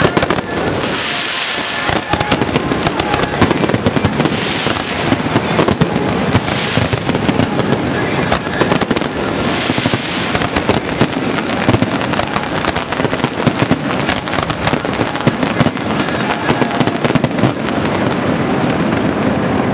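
Aerial fireworks in a dense barrage: shell bursts and crackling stars going off many times a second without a break.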